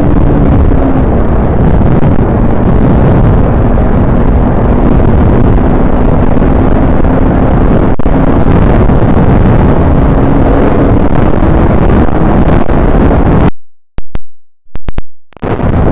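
Heavy wind buffeting the microphone of a motorcycle riding at speed, over a steady engine drone; the visor is broken, so the wind blast reaches the microphone. The sound cuts out abruptly for about two seconds near the end, with a few clicks in the gap.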